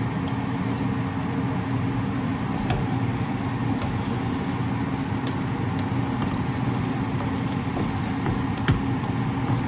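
A spatula stirring sliced onions in oil in a nonstick frying pan, tapping lightly against the pan a few times, over a steady low hum.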